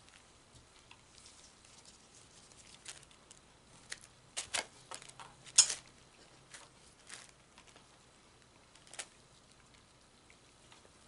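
Electrical tape being pulled and wrapped around igniter wires by gloved hands: faint, scattered crackles and clicks, a small cluster a little past four seconds and the loudest about five and a half seconds in.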